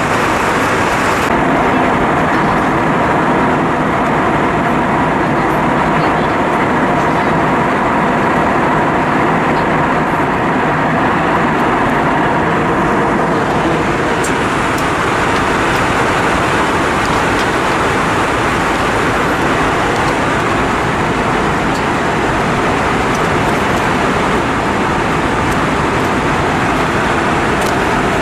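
Airbus A320-232 cabin noise in flight: a steady, loud rush of airflow over the fuselage with a low engine drone underneath. The hiss grows slightly brighter about halfway through.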